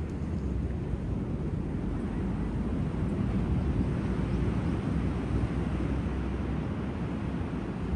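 Surf on a sandy beach: a steady, even rumble of waves with no single break standing out.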